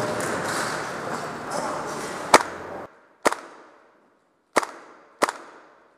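Four sharp shots from a gas blowback airsoft gun, unevenly spaced over about three seconds, each with a short echoing tail. The first comes over a steady rushing background that cuts off suddenly just after it.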